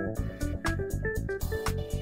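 Background music: a steady drum beat under a stepping melody.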